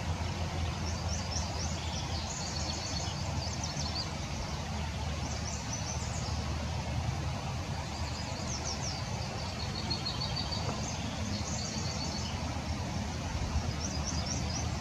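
Small songbirds singing in repeated high-pitched phrases of quick chirps, over a steady low rumble.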